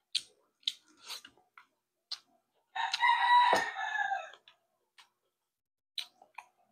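A rooster crows once, a loud call about a second and a half long starting nearly three seconds in. Short clicks and smacks from eating by hand come before and after it.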